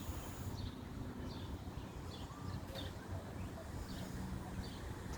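A bird chirping over and over, a short high note about once or twice a second, over a steady low rumble.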